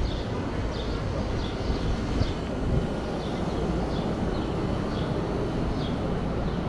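City street ambience: a steady low rumble of traffic, with a small bird chirping over and over, short high chirps about twice a second.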